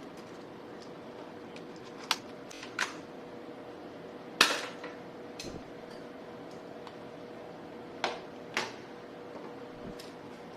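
Toy guns being fired and handled: about six sharp snaps and clacks, two close together about two seconds in, the loudest about four seconds in, and another pair near eight seconds, over a faint steady hum.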